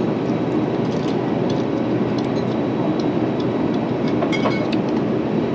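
Steady, low cabin noise of an Airbus A350 in flight, the engines and airflow heard inside the cabin, with a few faint light clicks.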